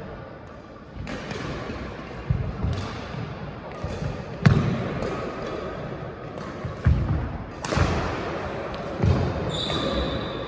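Badminton play: players' feet thudding on the court floor every second or two, with a sharp racket smack on the shuttlecock about halfway through.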